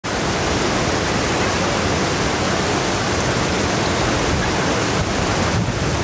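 Whitewater rapids of a river in spate pouring through a narrow rock gorge: a steady, loud rushing of water.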